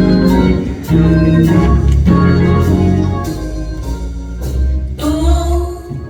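Organ playing held chords that change about every second or so.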